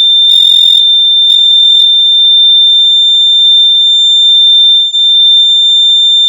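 Household smoke alarm sounding on its test button: one loud, steady, piercing high tone, broken briefly about five seconds in.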